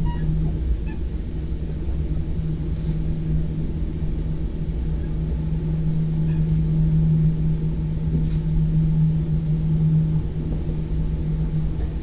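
Steady rumble of a moving commuter train, with a constant low hum, heard from the upper deck of a Gallery IV bilevel passenger car.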